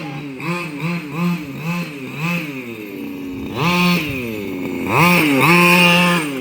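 Small two-stroke weed-whacker engine in a gas-powered RC car revving in quick repeated throttle blips, about two a second, then a longer rev and a high-revving stretch held for over a second near the end.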